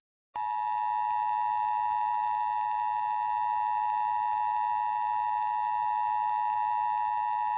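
Emergency Alert System attention signal: the two-tone alarm (853 and 960 Hz sounded together) held as one long, steady electronic tone, starting about half a second in.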